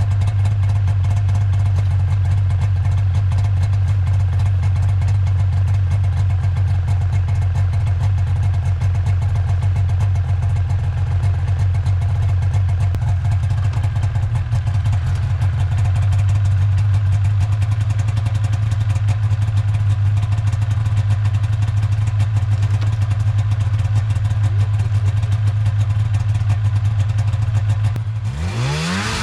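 Snowmobile engine running steadily at a low idle-like pace. About a second before the end its note rises sharply and holds higher as it is revved.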